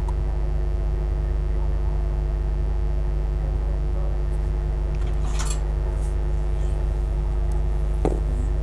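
Steady low hum, with a short hiss about five seconds in and a faint click near the end.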